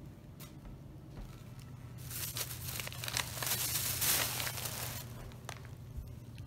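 Thin plastic grocery bags rustling and crinkling as they are handled and pulled open, starting about two seconds in and loudest around the fourth second, then dying down.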